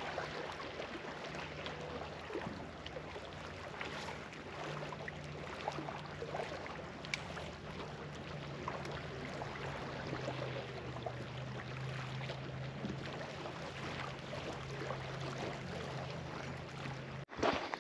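Steady low hum of a distant boat motor on a lake, dropping slightly in pitch about halfway through, over a hiss of wind. The sound cuts off abruptly near the end.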